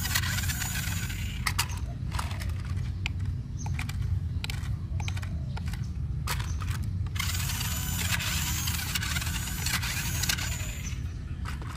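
Toy RC rock crawler's small electric motors and plastic gearboxes whirring as its wheels are driven from the transmitter, in two spells: one at the start and one from about seven seconds in, with sharp clicks of the plastic body being handled in between.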